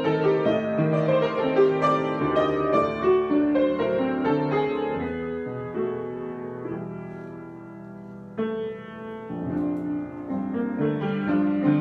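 Piano improvisation: a flowing line of notes over lower chords, then a chord held and left to fade for about two seconds before a new chord is struck and the playing picks up again.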